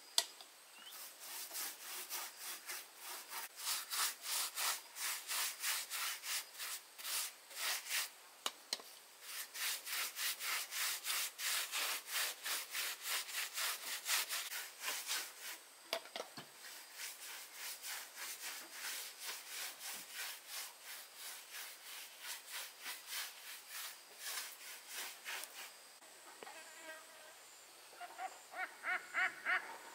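Hand saw cutting wood in steady back-and-forth strokes, about two a second, stopping near the end. A bird then calls in short repeated notes.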